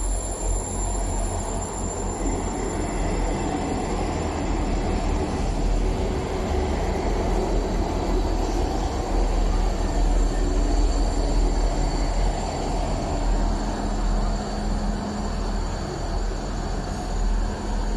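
South Western Railway diesel multiple unit running beside the platform, a steady low engine rumble with rail noise over it.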